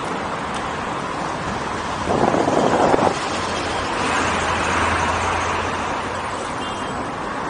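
Steady rush of wind and road traffic noise heard while riding an electric unicycle. A louder rush lasts about a second, two seconds in, and a low hum rises and fades in the middle.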